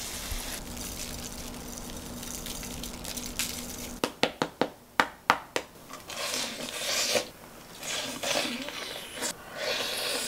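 Crispy deep-fried chicken leg crunching as it is bitten into: a quick run of about seven sharp crunches about four seconds in, then chewing.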